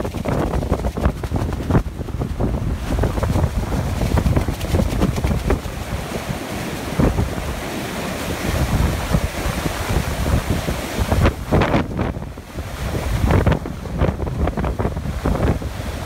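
Heavy typhoon-driven surf breaking and surging up a sand beach, with strong wind gusting on the microphone.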